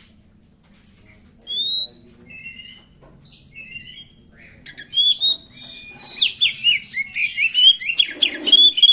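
Oriental magpie-robin (kacer) singing. First come scattered whistled notes and rising slurs, then from about six seconds a fast run of chirping notes, loudest near the end.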